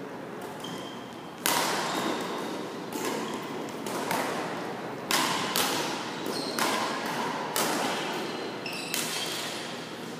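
Badminton rackets striking a shuttlecock in a rally: a run of sharp, echoing hits about one a second, starting about a second and a half in.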